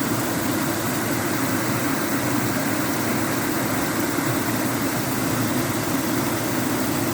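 Falling water pouring off rock in a steady, loud rush that does not change.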